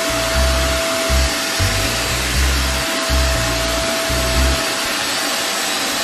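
Deerma DX700 corded handheld vacuum cleaner running steadily: a dense rushing hiss of motor and airflow with a high steady whine over it.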